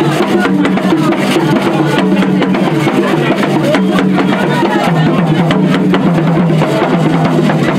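Loud music with drums and other percussion playing continuously.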